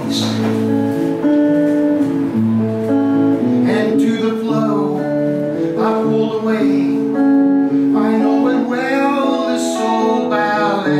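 Background music led by plucked and strummed guitar, with notes held and changing about once a second at an even level.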